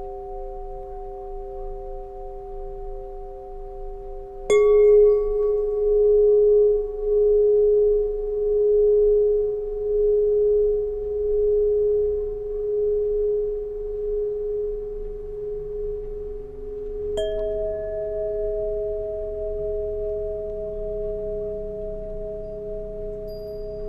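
Solfeggio tuning pipes ringing, several pure tones sustaining together. About four and a half seconds in, a lower pipe is struck with a sharp metallic tap and rings loudly with a slow pulsing waver. Around seventeen seconds in, a higher pipe is struck and joins the chord.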